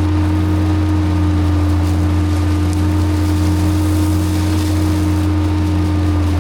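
Tractor engine running steadily under a constant load, a loud low drone with a regular throb a little faster than once a second.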